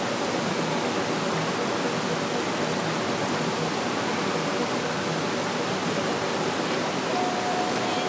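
Clear stream water babbling and rushing steadily over rocks, an even continuous noise. A faint, steady high tone joins near the end.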